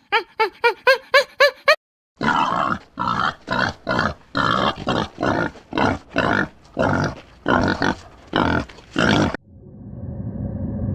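A series of harsh animal grunts, about two a second, after a few quick chirping calls at the start. Near the end they give way to a low, steady rumble.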